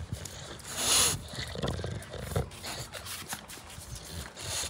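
A dog making low grumbling vocal sounds, with a short loud rush of noise about a second in.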